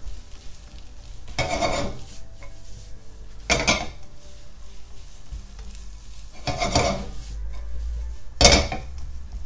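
A spatula scraping and knocking in a nonstick wok as spaghetti is stirred and tossed in its egg and cream sauce, with four louder scrapes about two seconds apart.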